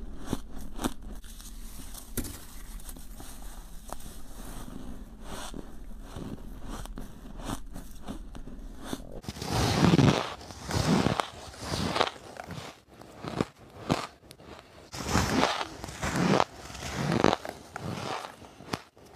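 Someone biting and chewing white, snow-like frosty ice: faint crackles and small crunches at first, then from about nine seconds in, loud crunchy bites roughly once a second.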